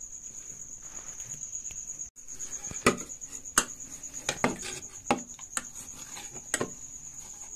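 Hand kneading sticky maida dough in a steel bowl: soft rustling of flour, then from about two seconds in, about seven sharp slaps and knocks as the wet dough and hand strike the bowl. A steady high-pitched pulsing trill runs underneath.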